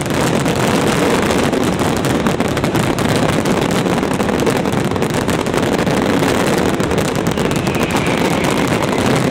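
Dense fireworks barrage: shots and crackle fired so rapidly that they blend into one continuous, unbroken din.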